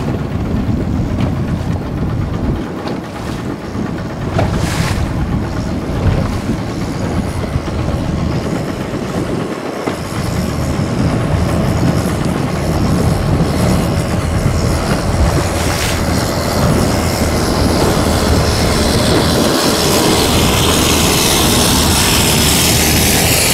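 Speedboat under way through choppy sea: its motor running, the hull thudding over the waves, and wind and spray rushing past the microphone. The rushing hiss builds through the second half, getting louder toward the end.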